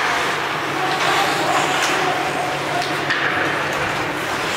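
Ice hockey rink ambience: spectators' voices around the arena with skating on the ice and a few light clacks of sticks and puck.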